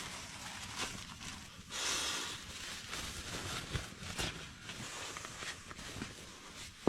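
Scattered rustling and small knocks of someone moving about and handling things, with a brief rushing hiss about two seconds in.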